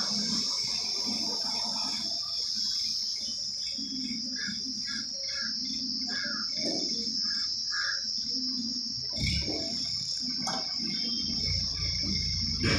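Insects chirring in a steady high-pitched drone, with a low rumble coming in over the last few seconds.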